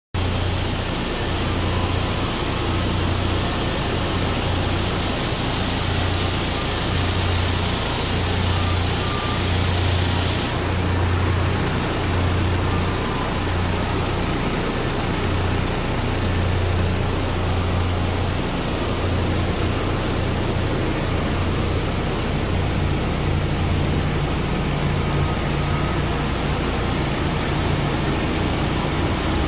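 Shale shakers on a drilling rig running, a loud steady machine drone with a low throbbing hum under a dense hiss of vibrating screens and drilling mud. The upper hiss eases somewhat about ten seconds in.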